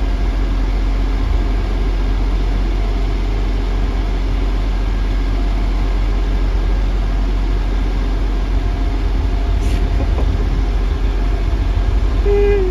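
Trains standing idle at a platform, a steady low engine hum with a constant drone. A short electronic beep sounds near the end.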